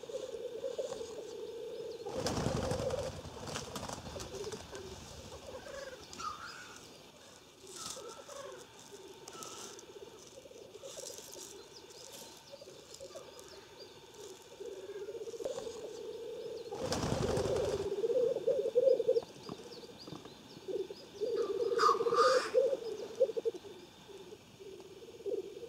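Black grouse males lekking: a continuous bubbling, cooing chorus, with two loud hissing bursts about 2 s in and again around 17 s.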